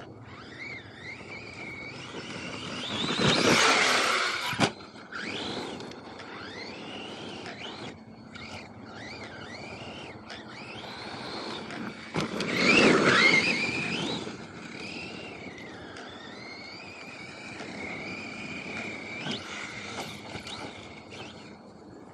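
Electric RC car driving, its motor whine gliding up and down in pitch with the throttle. It swells loud twice, about three and twelve seconds in, with a rush of tyres on dirt, and cuts off sharply once just before five seconds.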